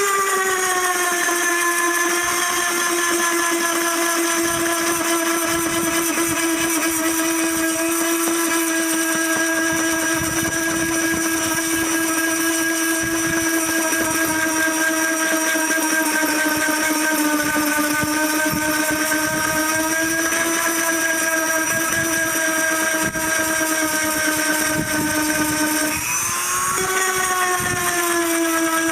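Dremel rotary tool sanding a dried sheep hide, its high steady whine dropping in pitch as it bears on the hide. About 26 seconds in the pitch dips briefly and then climbs back.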